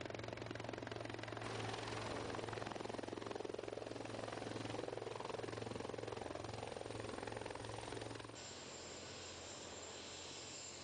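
Rescue helicopter's rotor and engine running steadily, with a rapid blade beat. About eight seconds in, the level drops a little and a thin high whine comes in.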